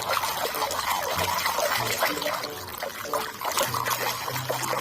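Water trickling and splashing as a mud-covered toy car is washed by hand in clean water.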